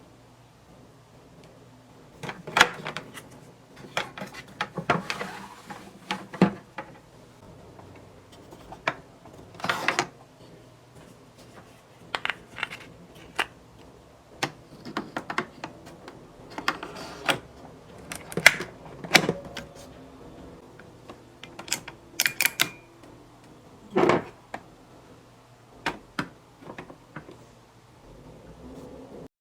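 Kitchenware being handled while coffee is made: irregular clicks, taps and knocks, with a short ringing clink and, near the end, a heavier knock.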